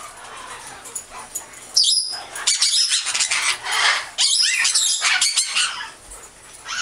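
Parrots calling with loud, harsh squawks and screeches, starting about two seconds in and stopping about five and a half seconds in.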